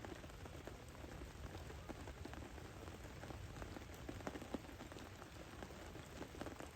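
Rain falling steadily, with many scattered drops tapping.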